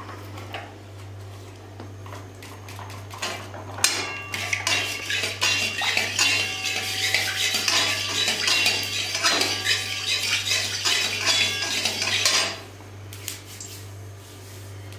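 Flat steel spatula scraping and clinking against an aluminium kadhai while stirring pieces of jaggery melting in ghee, with short metallic rings. It is light for the first few seconds, busy and loud from about four seconds in, and drops back to light scraping about twelve seconds in. A low steady hum runs underneath.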